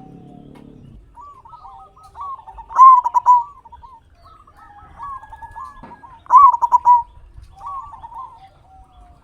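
Zebra dove singing: three phrases of cooing, each two to three seconds long, with the loudest notes about three and six and a half seconds in.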